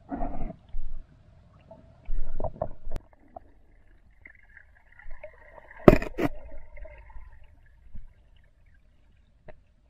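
Underwater handling and movement noise from a diver and camera: muffled knocks and bumps, a faint wavering whine in the middle, and two sharp clicks about six seconds in.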